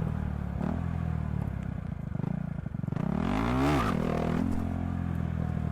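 Motorcycle engine idling, then revved up sharply once about three seconds in and dropping back to idle: a throttle blast to lift the front wheel for a wheelie.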